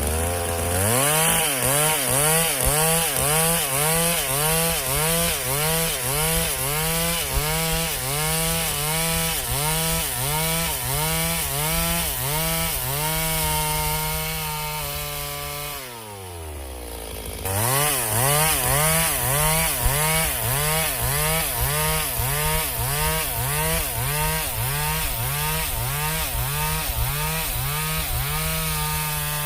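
Chainsaw engine cutting wood, its pitch rising and falling in a steady rhythm roughly every half second as it loads and unloads in the cut. About halfway through, the engine winds down in pitch, then comes back at full speed and the rhythmic cutting resumes.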